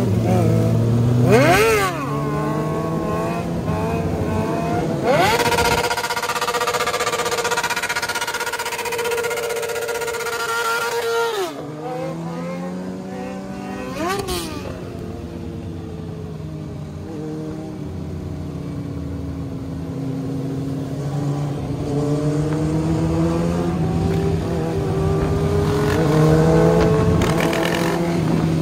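Motorcycle engine on the move, revved in two quick blips near the start, then held at a steady higher pitch for several seconds before dropping off. After one more short rev, the pitch slowly climbs again toward the end.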